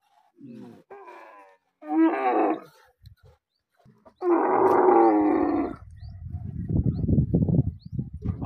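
Dromedary camels calling: a few short moaning calls, then a longer one of about a second and a half near the middle, followed by a low, rough, pulsing rumble in the last few seconds.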